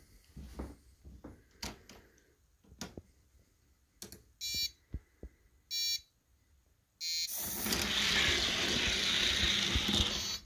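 Small plastic clicks as die-cast cars are set in an electronic starting gate, then three short countdown beeps. Two 1:64 die-cast cars then roll down a plastic drag track with a steady rushing rattle for about three seconds, which stops abruptly at the finish.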